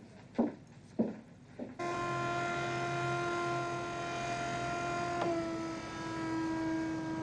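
Electric lift truck's motor running with a steady whine. It starts suddenly about two seconds in and shifts slightly in pitch about five seconds in. A few short soft sounds come before it.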